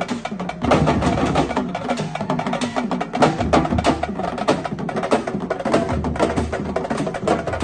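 Music with dense, fast percussion: quick drum and wood-block-like strikes over a steady beat.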